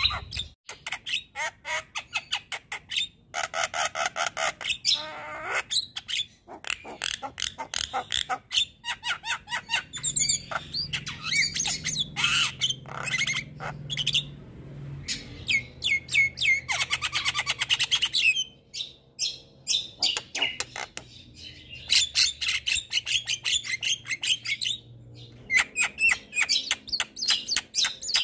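Javan myna singing a long, fast run of harsh chattering, clicking and squawking notes, broken by brief pauses.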